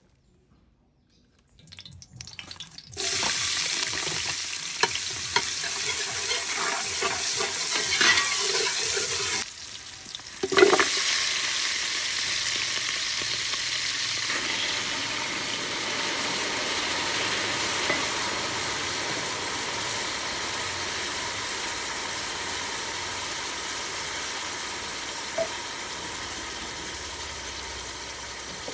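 Food frying and sizzling in a hot pan, with stirring. The sizzle starts about three seconds in, a knock comes about ten seconds in, and the sizzling then continues steadily, slowly growing fainter.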